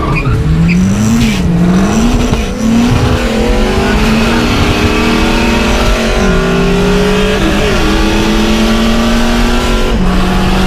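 Turbocharged Nissan SR20DET four-cylinder engine pulling a car through the gears. The engine note climbs and drops back at each gear change several times, then holds steadier with slight rises and dips.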